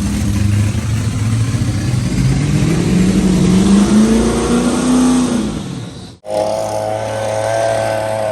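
Blown alcohol engine of a 1,400 hp VX Commodore Clubsport revving, its pitch climbing over a few seconds and then falling away. After a sudden cut about six seconds in, an engine holds a steady, higher-pitched note.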